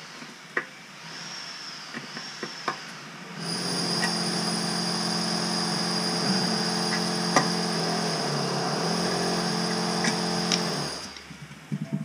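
A few light knocks, then a handheld power tool running at one steady speed for about seven seconds at the toilet's closet bolt. It stops near the end.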